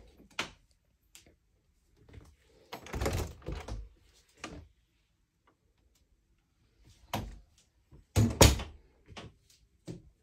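Closet door being opened and shut: a cluster of knocks and rattles about three seconds in, and two loud thuds about eight seconds in.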